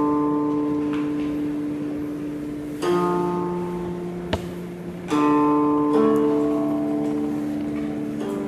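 Guqin, the seven-string Chinese zither, played slowly and solo: plucked notes, often two or three sounded together, each left to ring and fade for a few seconds before the next pluck. There is one faint click near the middle.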